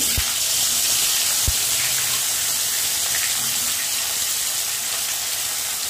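Turmeric-marinated fish pieces frying in hot mustard oil in a kadai: a steady, intense sizzle that starts abruptly as the fish goes into the oil. Two brief low thumps come near the start and about a second and a half in.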